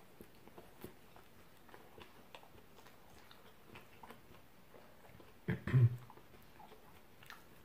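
A man chewing a mouthful of stuffed naan sandwich, with faint, scattered wet mouth clicks. About five and a half seconds in comes a short, louder throat sound.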